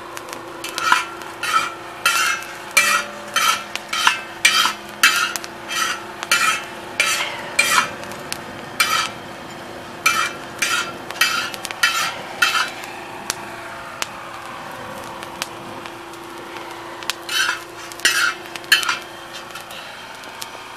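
A metal slotted spoon stirring and scraping roasting coffee beans across a hot steel disc cooker, in repeated strokes about one and a half a second, with a pause of a few seconds about two-thirds through before a few more strokes. A steady hiss and low hum run underneath.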